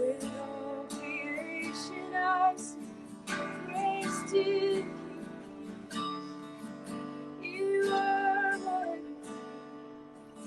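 Acoustic guitar strumming under a woman singing long held notes with vibrato.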